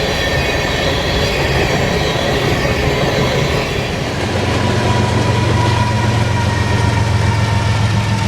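A train rolling by on the rails with wheel and rail noise and high steady squealing tones. About halfway through, a diesel engine's steady low drone comes to the fore.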